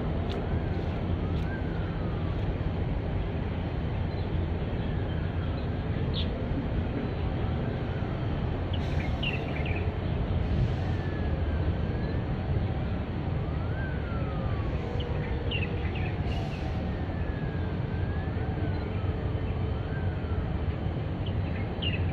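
Outdoor ambience: a steady low rumble, with the faint rising and falling wail of a distant siren over it, and a few short bird chirps.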